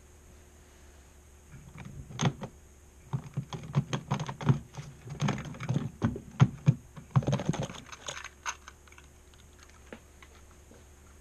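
Irregular clicks and taps of fingers handling a plastic model railway coach right by the microphone, a dense run of them from about two seconds in until about eight seconds in, over a faint steady hum.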